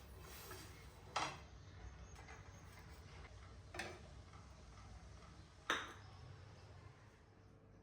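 Three light clinks of kitchenware, about two seconds apart, over a faint steady low hum.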